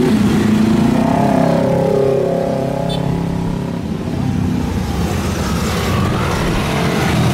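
Jet airliner passing low overhead on its landing approach: a steady engine rumble with a whining tone that falls in pitch between about one and three seconds in.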